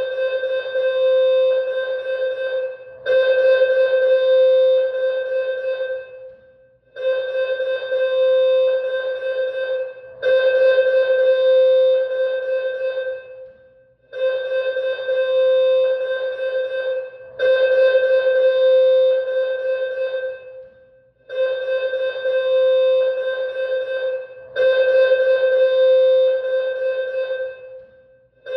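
School alarm sounding in a warning loop: a steady mid-pitched tone in paired three-second blasts, the second louder, then a brief break. The cycle repeats about every seven seconds, four times over.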